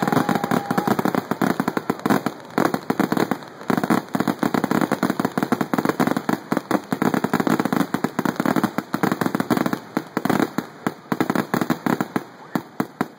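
Fireworks going off in a rapid, continuous barrage of sharp bangs and crackles, several a second, which stops near the end.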